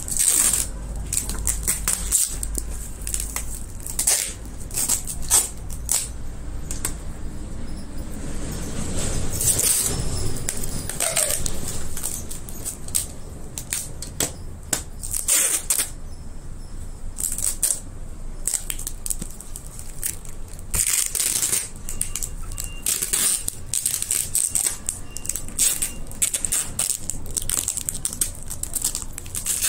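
Packing tape being pulled off the roll in many short rips and pressed onto a cardboard box wrapped in plastic film, with crinkling of the plastic.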